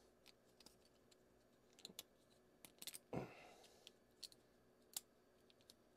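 Faint, scattered small clicks and ticks of hard 3D-printed plastic parts being handled and worked between the fingers.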